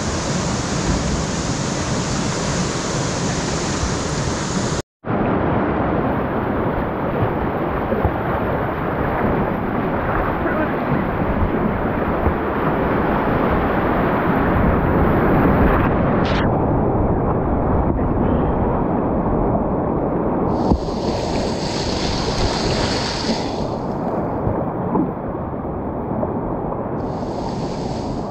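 Steady rush of whitewater in a river rapid, heard from a kayak running down it. The sound cuts out for a moment about five seconds in.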